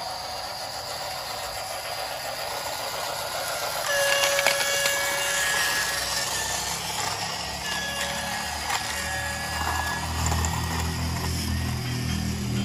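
Battery-powered toy diesel locomotive running along plastic track with a steady motor-and-wheel whir. Its electronic horn sounds twice, a buzzy held tone of about two seconds each, starting about four and eight seconds in. A low rumble joins near the end.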